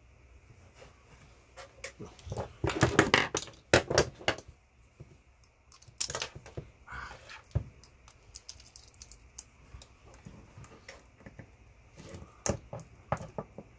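Hand tools and small metal parts clicking, clinking and knocking irregularly while a massager is being taken apart, with a busier cluster of knocks about three seconds in and more near the end.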